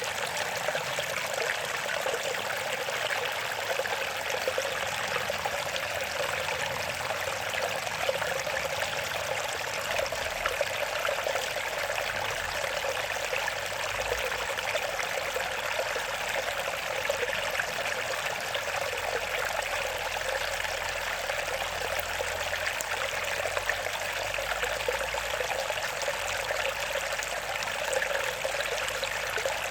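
Running water trickling steadily in an even, unbroken flow, with no pauses or surges.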